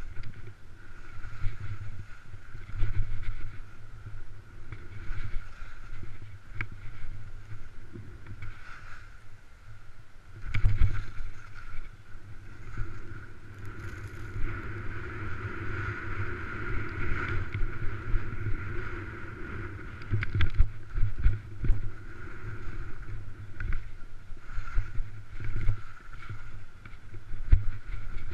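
Skis sliding and scraping over packed snow through a series of turns, with wind buffeting the camera microphone as a low rumble and uneven thumps and swells in loudness.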